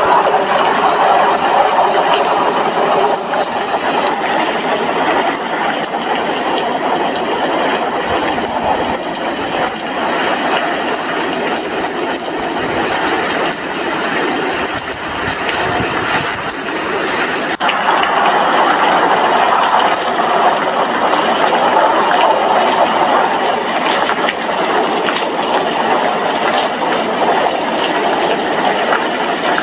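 Steady rain heard at an apartment window: a continuous even hiss with no single drops standing out, over a faint steady high tone.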